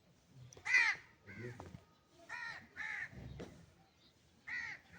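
A series of short, pitched animal calls, about five in five seconds, each rising and falling in pitch.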